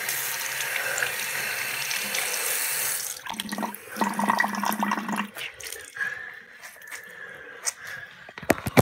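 Water running from a tap into a sink, changing in tone about three seconds in and stopping after about five seconds. A few sharp knocks follow, the loudest near the end.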